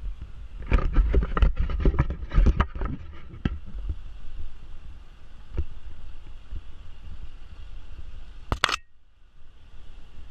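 Knocks and rattles of an off-road vehicle jolting over rough ground, over a low rumble: a dense run of knocks in the first few seconds, one more a little later, and a sharp double click near the end.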